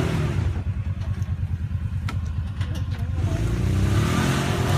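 UTV engine pulling up a rough, steep trail: it eases off early on, then revs up again over the last second and a half. A few sharp clicks come in the middle.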